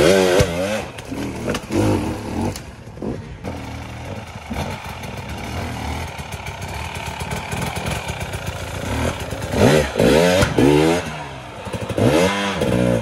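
Dirt bike engine revving in repeated bursts that rise and fall in pitch, running lower and steadier through the middle stretch, with scattered knocks and clatter.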